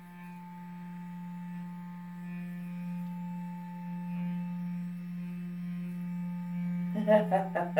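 Clarisonic Mia sonic facial cleansing brush running against the skin of the face: a steady electric hum that holds one pitch throughout.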